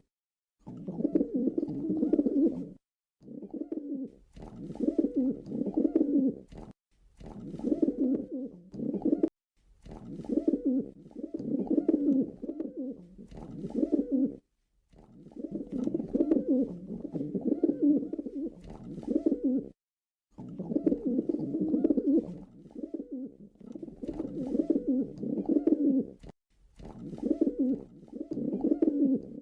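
Pigeon cooing over and over in low, throaty runs of a second or two, each broken by a short gap of silence.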